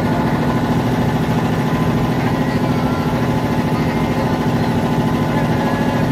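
Motorboat engine running steadily at an even pace, with a fast, regular throb.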